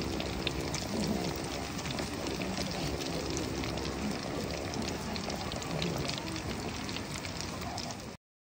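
Skewered kushikatsu deep-frying in oil in an aluminium mess tin: a steady, dense crackling sizzle that cuts off suddenly near the end.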